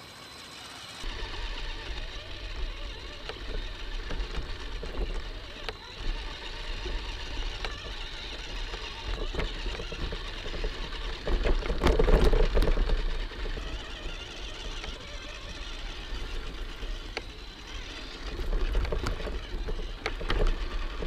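Small electric RC crawler truck driving, heard up close from on board: a steady electric motor and gear whine with clicks and knocks from the chassis and wheels. It starts about a second in and is loudest around twelve seconds in.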